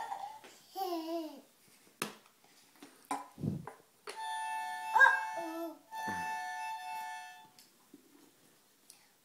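Lauri Toys 8-piece sound puzzle playing two short electronic sound clips through its built-in speaker, each about a second and a half long, the sign of a piece set into its matching slot. A toddler babbles briefly about a second in.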